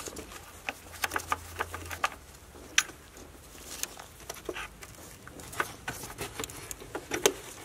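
Irregular light clicks and taps of a gloved hand working a small loosened bolt and a plastic wiring connector free on an engine's intake manifold.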